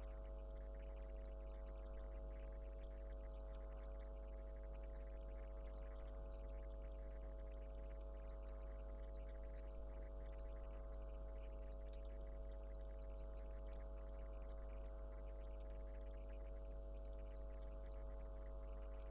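Steady electrical hum: a constant low drone with a few faint steady tones above it, unchanging throughout, and no knocks or other events.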